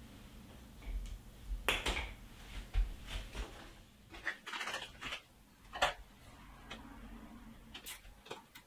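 Handling noise from clear plastic water-cooling tubing and its fittings being worked onto a PC mining rig frame: irregular clicks, light knocks and short rustles, with a few sharper clicks about two, three, six and eight seconds in.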